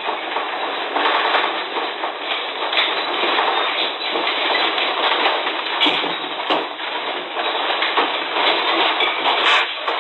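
A house shaking in an earthquake: a continuous loud rattling and clattering of the building and the household objects in it, with many sharp knocks.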